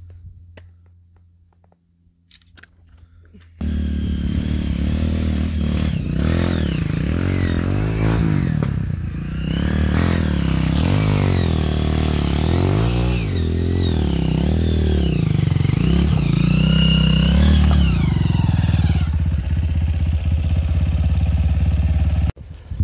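Dirt bike engine revving, its pitch rising and falling again and again. It starts abruptly a few seconds in and stops just before the end.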